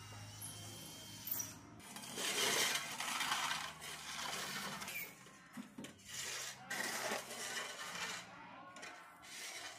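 Shovels scraping and digging into gravel and dirt: a series of scrapes and clinks, loudest about two to three and a half seconds in.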